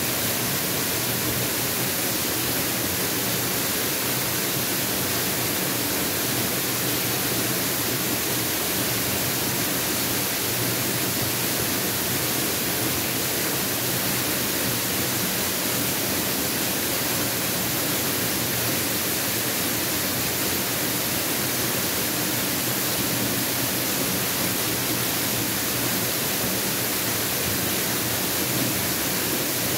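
Mountain waterfall: falling water rushing in a steady, unchanging hiss.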